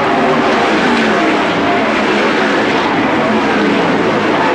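NASCAR Winston Cup stock cars' V8 engines racing past in a pack: many engines at once, blending into one steady, loud wall of engine noise.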